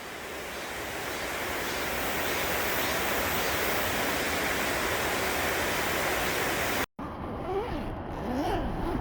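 Mountain stream water rushing over rocks, a steady even rush that fades in at the start. It breaks off suddenly about seven seconds in, and a quieter rush follows with a few short gliding sounds.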